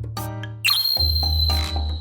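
Background music with a steady beat. About half a second in, a high ringing chime-like tone enters and holds almost to the end.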